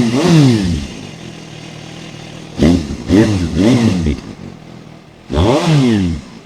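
Suzuki GSR 750's inline-four blipped on the throttle through a new aftermarket muffler can with its baffle insert fitted. Each blip rises and falls in pitch: one fading out at the start, three quick blips about two and a half seconds in, and one longer blip near the end, with a steady idle between them.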